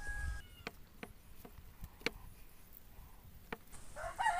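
A rooster crowing: one call tails off at the very start and another begins near the end, rising in pitch. In the quiet between come a few sharp, scattered clicks.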